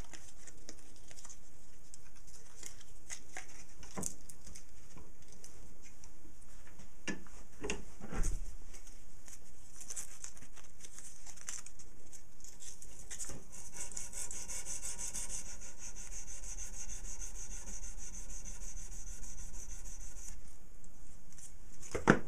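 A small iron armature being rubbed back and forth by hand against a file and emery to polish it, a steady scraping, with a sharp knock about eight seconds in and another near the end.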